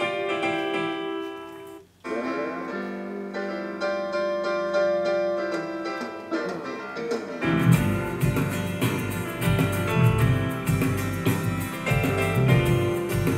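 Concert music from a TV, keyboard at first and then guitar with the full band. About two seconds in the sound cuts out for a moment, and about halfway through it turns much fuller with strong bass as the output switches from the TV's own speakers to a Yamaha YAS-209 soundbar.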